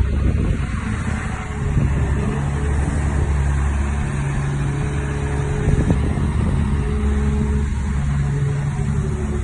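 Caterpillar 345D hydraulic excavator's diesel engine running steadily with a deep hum, with a few steady higher tones fading in and out over it.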